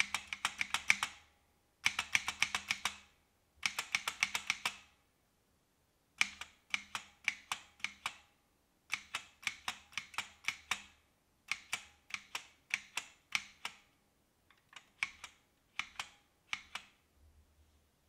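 Micro Switch SW keyboard, with Hall-effect key switches, being typed on. Three quick runs of keystrokes come first, then slower groups of separate key clicks with short pauses between them.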